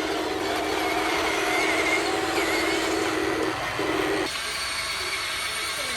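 Electric motor of a Huina RC construction machine whirring with a steady buzz, which stops about three and a half seconds in, starts again briefly and cuts off.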